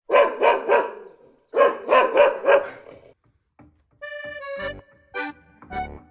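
A dog barking in two quick runs, three barks then four, followed about four seconds in by accordion music.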